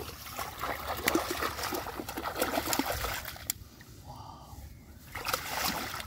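Shallow muddy water splashing and sloshing as a multi-pronged fish spear is jabbed into a drain and a speared fish thrashes in it. The splashing dies down about three and a half seconds in, then picks up again near the end.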